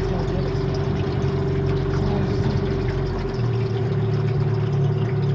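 Boat's outboard motor running steadily at low speed; its note changes about three seconds in.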